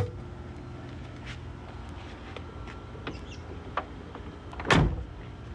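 Small clicks and knocks from a 1992 Mercedes-Benz G-Wagen's interior fittings being handled, then one solid door thump near the end, over a steady low hum.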